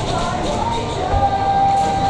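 Background hip-hop music, with one long held note through the middle.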